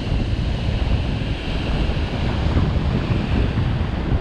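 Ocean surf breaking and washing in foam across a rock platform, a steady rushing hiss, with wind rumbling on the microphone.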